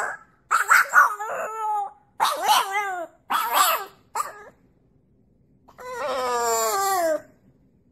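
French bulldog puppy howling: four short howls in the first four seconds, then, after a pause, one longer howl that falls in pitch.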